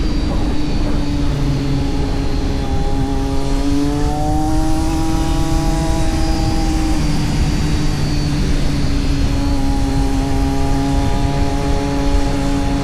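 Kawasaki Z900's inline four-cylinder engine running under way, its note climbing a little a few seconds in, easing back about halfway through, then holding steady.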